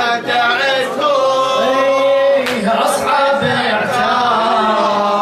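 Male voices chanting an Arabic latmiyya, a Shia mourning elegy, in long sung lines without instruments.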